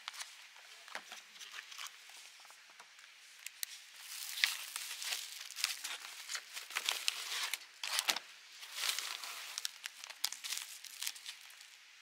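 Irregular crinkling and rustling, with many sharp crackles and no steady rhythm, busiest from about four seconds in.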